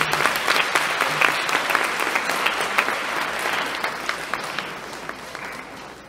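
Audience applauding in a large hall, many hands clapping, dying away over the last couple of seconds.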